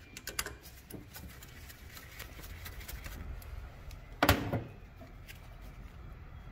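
Small clicks and clinks of wire terminals and parts being handled as an old wiring harness is unhooked from an alternator's terminal studs, with one louder knock about four seconds in.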